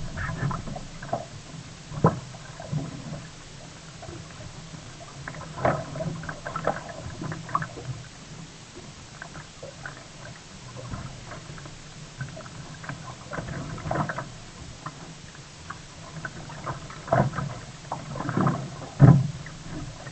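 Sea kayak on the water: irregular splashes and light knocks of water against the hull and paddle, the loudest few near the end.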